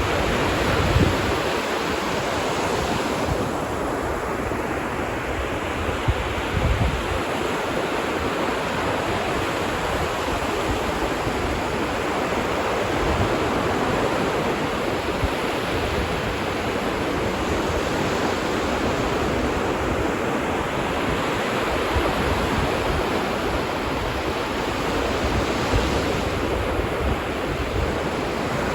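Ocean surf washing onto a beach: a continuous rush of waves that swells and eases every several seconds, with a few low gusts of wind on the microphone.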